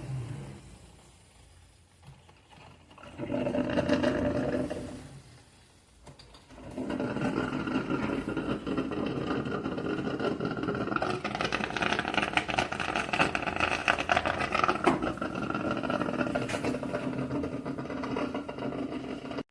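Hamilton Beach 12-cup drip coffee maker brewing: a short swell of rushing noise, then from about seven seconds in a steady rushing, rattling run.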